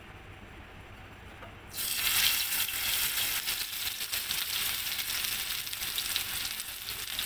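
A beef-mince chapli kabab patty hitting hot oil in a frying pan: after a quiet start, sizzling begins suddenly about two seconds in and carries on as a loud, crackling hiss of frying.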